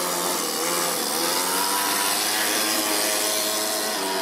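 Toyan FS-S100 four-stroke single-cylinder overhead-cam engine in an RC car running at high revs as the car drives. Its note dips briefly about a second in, then climbs and holds steady.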